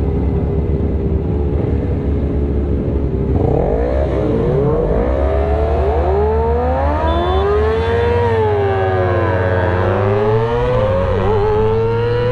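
Sport motorcycle engines idling, then from about three seconds in accelerating hard up through the gears, the engine note rising and dropping back at each shift, with other bikes revving alongside. The rider's own bike has an exhaust that he calls loud and says robs it of power.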